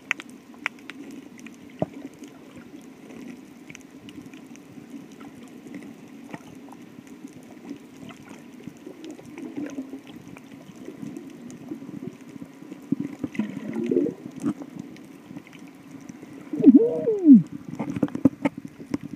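Muffled underwater sound picked up by an iPhone inside a waterproof case: a steady low hum of moving water with scattered clicks and taps. Near the end a louder tone rises and falls over about a second.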